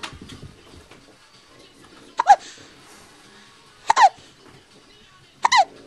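A three-week-old baby hiccuping three times, about one and a half seconds apart. Each hiccup is a sharp catch followed by a short squeaky note that drops in pitch.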